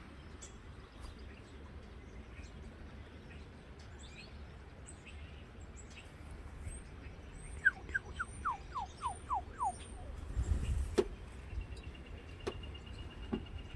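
Wild songbirds singing over wind rumbling on the microphone. About halfway through comes a quick run of about eight down-slurred whistles, with high thin chirps around it. Near the end comes a steady, high trill, and a gust of wind rises just before it.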